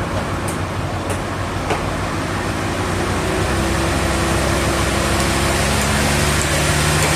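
A machine engine running steadily, its hum stepping up a little in pitch about three seconds in, with a few light clicks in the first two seconds.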